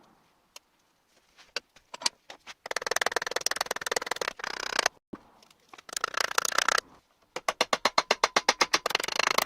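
Abrasive scraping on a wooden pliers handle being shaped: a few faint clicks, then long stretches of scraping, ending in a quick, even run of about ten strokes a second.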